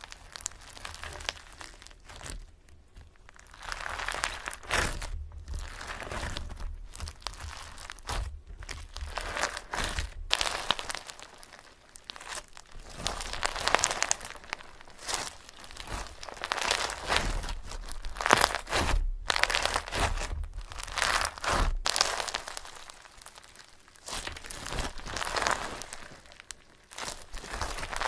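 Crinkling and crunching sounds of something being mashed and squished, close up, coming in irregular waves.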